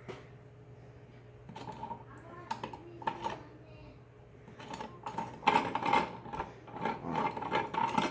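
Hard plastic parts of a hand-cranked meat mincer being fitted and twisted together: the cutting plate and locking ring go on with irregular clicks, scraping and rattling that get busier and louder in the second half.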